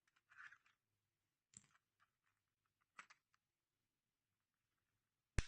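Plastic back-cover clips of an MC550 enclosure clicking and snapping free as the cover is pried open with a plastic pry tool. There are a few light clicks, then one sharp, loud snap near the end.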